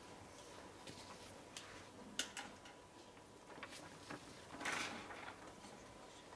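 Quiet room with scattered small clicks and knocks from papers and pens being handled at the tables, a sharper click about two seconds in and a short rustle near five seconds.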